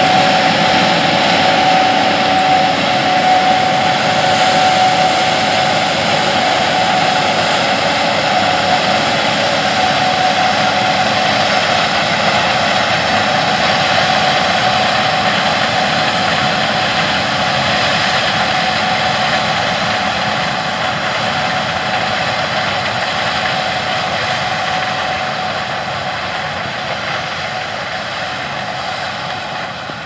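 AGCO Gleaner S77 combine running under load while harvesting corn: a steady drone of engine and threshing machinery with a high whine through it. It slowly fades as the combine moves away.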